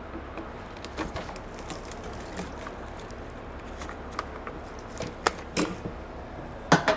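End cap being pried off a John Deere 1910 air cart meter housing: scattered clicks and knocks of the prying tool and cap against the housing, with a cluster of louder knocks near the end.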